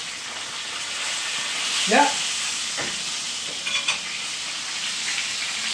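Whole tilapia frying in oil in a pan: a steady sizzle, with a couple of faint clicks around the middle.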